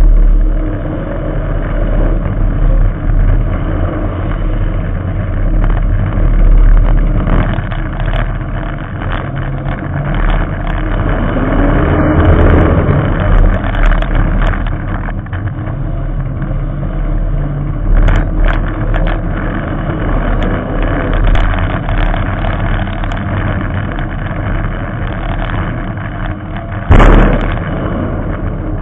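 Figure-8 race car engine running hard through open upright exhaust stacks, its pitch rising and falling with the throttle. A sharp, loud bang sounds about two seconds before the end.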